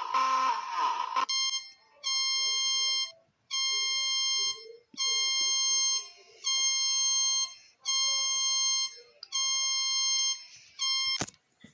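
Mock Emergency Alert System alarm: a harsh buzzing tone that cuts off about a second in, then an electronic alarm beeping about eight times, each beep around a second long with short gaps between. A sharp click comes near the end.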